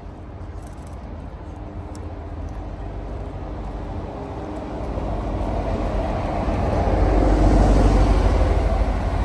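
A vehicle approaching and passing close by, its rumble and running noise growing steadily louder to a peak near the end.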